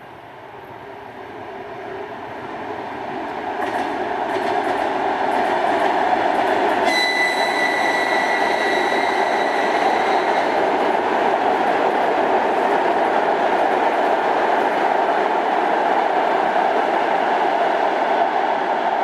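A train approaching and passing close by, its running noise building over the first few seconds and then holding steady and loud. About seven seconds in, a high, steady tone with overtones sounds for about three seconds.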